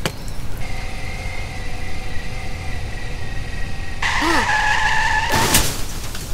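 Sound effect of a vehicle running with a steady hum, then tyres squealing in a hard skid about four seconds in, ending in a loud crash impact a second later.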